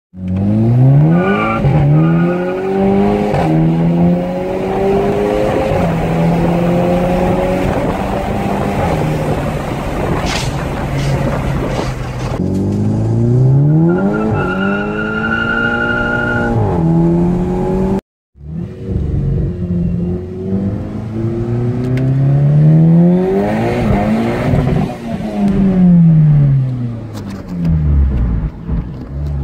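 Volkswagen Golf GTI Edition 35's turbocharged 2.0-litre four-cylinder through a custom-built stainless steel exhaust, heard from inside the cabin. It is driven hard through repeated full accelerations, the engine note climbing steeply and dropping back at each gear change. A brief dropout comes about 18 seconds in, then the revs swing up and down again.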